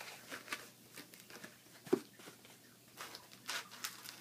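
Foam pool noodle being slid over a PVC pipe: faint, scattered rubbing and rustling, with one sharper click about two seconds in.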